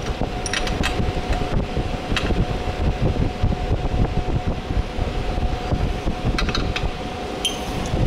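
Electric fan running steadily, with a few short metallic clicks of a wrench working the chain adjuster lock nut at the motorcycle's rear axle.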